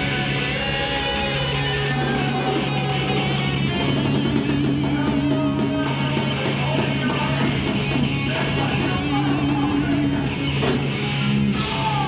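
Live rock band playing loud, led by electric guitar over a long held low note, with a falling pitch slide near the end.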